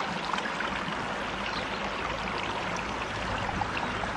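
Small trout creek running steadily, an even rush of water with a few faint scattered ticks.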